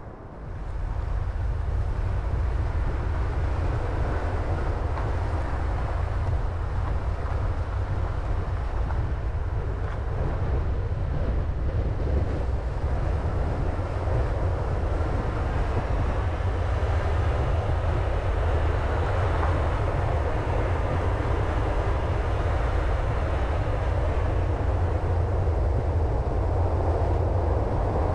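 Car driving along a road: steady engine and road noise with a heavy low rumble, jumping louder about a second in and then holding steady.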